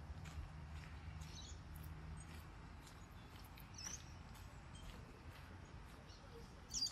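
Quiet outdoor ambience of a walk: faint footsteps and a few short, high bird chirps, the loudest near the end, over a low steady hum that fades out about two seconds in.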